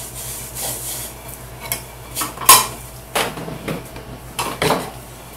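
A steel cabinet scraper scraping a marquetry panel flush, in light rasping strokes that die away within the first second or two. Then come several sharp knocks and clinks as the scraper and panel are handled on the wooden bench.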